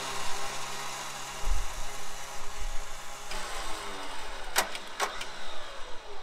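Winch on the front bumper of an off-road recovery rig running, reeling in its cable under load to pull a stuck car up a sandy shelf. The motor whine sinks slowly in pitch through the second half, and two sharp clicks come close together near the end.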